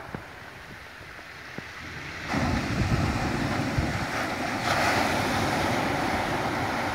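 Surf breaking on a shingle beach. A softer wash comes first, then a wave breaks a little over two seconds in, and the surf stays loud and gets louder again near five seconds. Wind buffets the microphone throughout.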